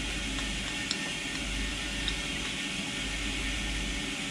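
Steady hiss and low hum of engine-room machinery and ventilation, with a couple of faint clicks about one and two seconds in.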